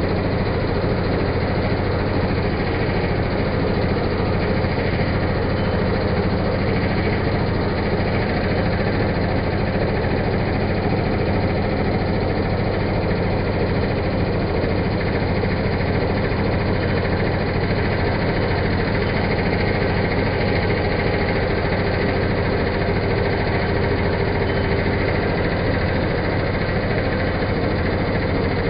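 Pillar drill running steadily while counterboring a drilled hole: an even motor and spindle hum with no change in pitch or level.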